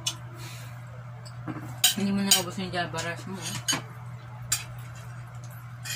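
Cutlery clinking and scraping against ceramic plates during a meal, with scattered sharp clicks. A short murmured voice sound about two seconds in, over a steady low hum.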